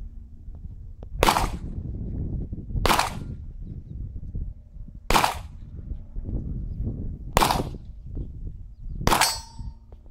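Five pistol shots from a Glock, fired one at a time at an unhurried pace of roughly one every one and a half to two seconds, the last followed by a brief ringing tone.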